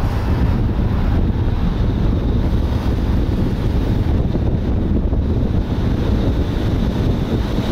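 Wind buffeting the microphone of a camera on a moving car, a steady low rumble mixed with road noise.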